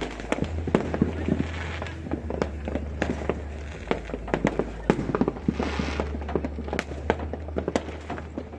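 Fireworks and firecrackers going off in a dense, irregular run of sharp bangs and pops that overlap one another.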